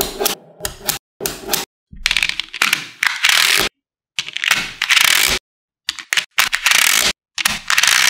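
Small magnetic balls clicking and clattering against one another as they are handled and snapped together: a run of sharp clicks, then longer rattling bursts from about two seconds in, broken by cuts to dead silence.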